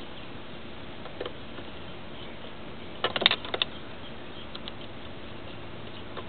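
A quick cluster of light, sharp clicks and taps about three seconds in, with a couple of fainter ticks earlier, over a steady low hiss.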